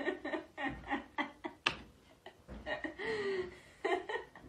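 A woman laughing in a run of short bursts with brief pauses between them.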